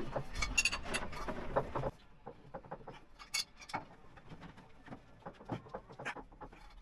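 Scattered light clicks and clinks of hand tools and bolts on metal during bolt tightening. The first two seconds are over a louder noisy background that cuts off abruptly about two seconds in.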